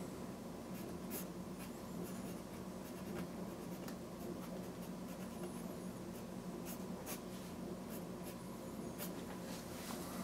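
A pencil scratching on watercolour paper in short, faint strokes, writing a signature, over a low steady hum.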